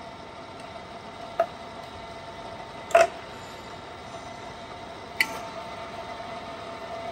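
Csepel RF 50/1250 radial arm drill running with a steady hum as its feed-rate controls are shifted to a higher feed. Three sharp metallic clicks from the controls, about a second and a half in, at three seconds and just past five seconds, the middle one loudest.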